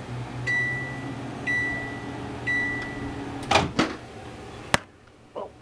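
Microwave oven humming as it runs, then three evenly spaced beeps signalling the end of heating. A couple of clunks and a sharp click follow as the door is opened, and the hum cuts off.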